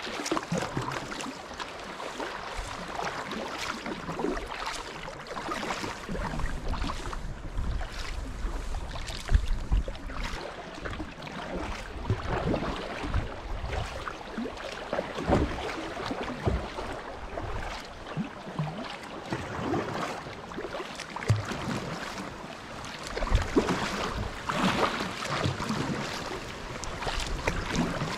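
Kayak paddle strokes splashing in a shallow river, with water rippling over a riffle around the hull and gusts of wind buffeting the microphone now and then.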